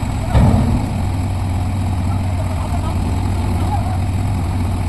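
Heavy machine's diesel engine running steadily at a low hum, with one loud heavy knock about half a second in.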